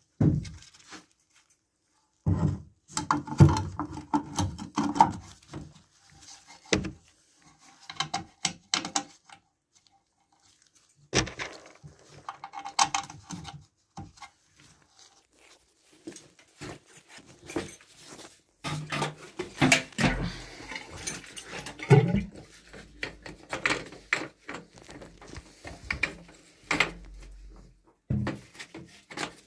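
Handling noises from working on a sump pump by hand: irregular clicks, knocks and scrapes of its parts in clusters, with short quiet gaps between. The pump is not running.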